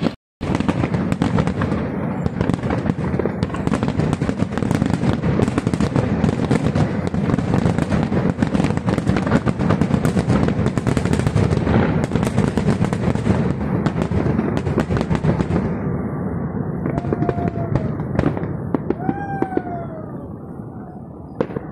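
Aerial fireworks in a finale barrage: a dense, continuous run of shell bursts and crackling that thins out and fades over the last few seconds. Two short falling tones sound over the fading crackle near the end.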